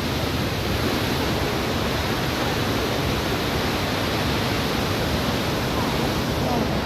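Bow Falls, a wide waterfall on the Bow River, rushing: a steady, loud wash of falling water with no breaks.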